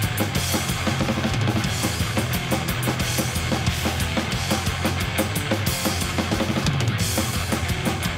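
Blackened thrash/death metal song in an instrumental passage: distorted electric guitars and bass over driving drums with a fast bass drum and snare.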